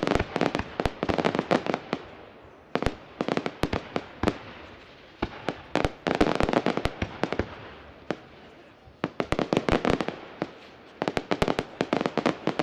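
Aerial fireworks bursting into crackling stars: clusters of rapid sharp pops and cracks, a new cluster every two to three seconds, with a reverberant haze between them.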